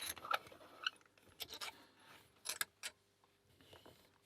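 Light metallic clicks and clinks of a small padlock and its key being handled, a few scattered taps over the first three seconds.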